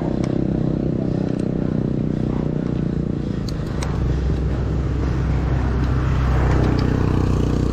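Steady wind and road rumble from riding a bicycle along a paved road, mostly low and swelling a little from about four seconds in.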